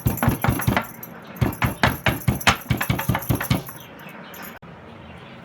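Fresh ginger being pounded with a pestle in a mortar: quick repeated strikes, about five or six a second with a short pause about a second in, stopping a little before the four-second mark.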